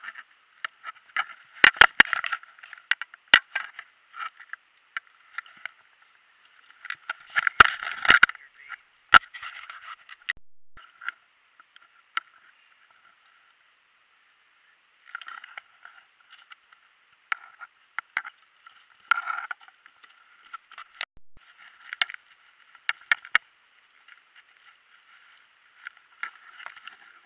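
Scattered knocks and thumps on a plastic kayak deck with rustling in between, as a caught sunfish flops on the deck and is handled. The sound is thin and muffled; the sharpest knocks come about two and eight seconds in, with a lull a little before the middle and lighter rustling after it.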